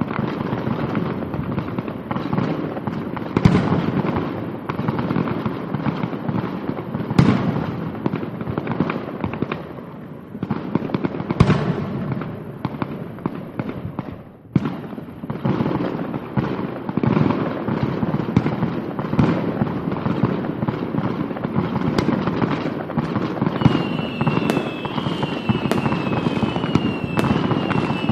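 Fireworks sound effects from a light show's loudspeakers: dense crackling with loud bangs every few seconds, and near the end a run of falling whistles.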